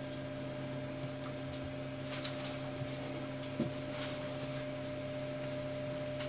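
A steady electrical hum runs throughout. Over it come a few faint scrapes and ticks, about two and four seconds in, as a thin metal pick works along the edge of a smartphone's frame and display.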